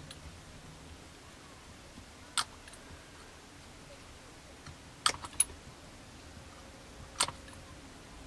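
Sparse light clicks and taps of plastic model-kit parts and a glue brush being handled while liquid cement is worked into a joint: one click about two seconds in, a quick cluster of three around five seconds, and another near seven seconds, over quiet room tone.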